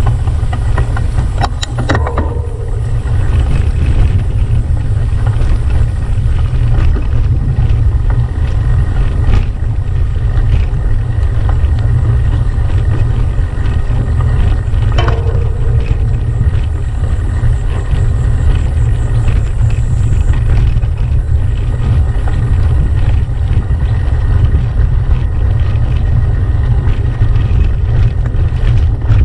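Heavy low rumble of wind buffeting a bike-mounted action camera's microphone, mixed with the rattle of a gravel bike's tyres and frame over a rough dirt track. There are sharp knocks from bumps about two seconds in and again about fifteen seconds in.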